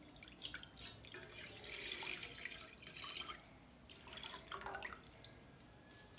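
Milk poured from a steel jug into a stainless steel saucepan, splashing into the pan as it fills; the pouring stops about five seconds in.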